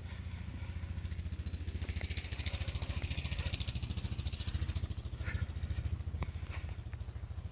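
Four-wheeler (ATV) engine idling with a steady, fast low pulsing, with a brief hiss about two seconds in.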